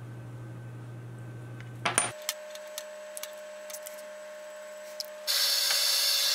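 A few light metal clicks and taps as small steel pieces are handled on a wooden workbench, the sharpest pair about two seconds in. About five seconds in, a small propane forge starts up, its torch burning with a loud steady hiss.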